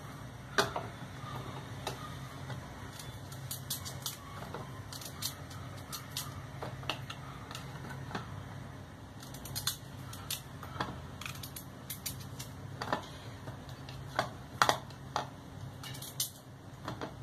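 Kitchen knife slicing raw potatoes held in the hand, giving irregular clicks and taps as the blade cuts through and slices knock into a plastic bowl, over a steady low hum.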